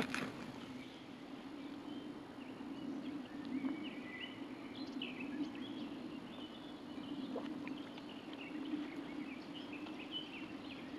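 Birds chirping faintly in short repeated calls over a steady low hum, with a single click at the very start.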